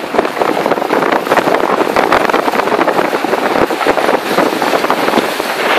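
Fishing boat under way at sea: its engine runs steadily under a dense, crackling noise of wind buffeting the microphone.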